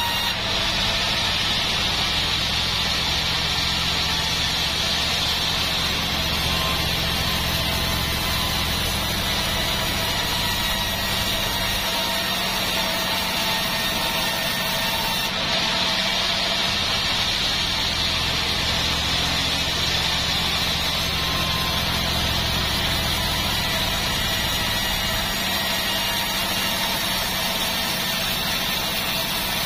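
Band sawmill running, its blade cutting a joar (Siamese cassia) log as it is fed through, over the steady drone of the mill's motor. The low drone grows louder twice, for several seconds each time.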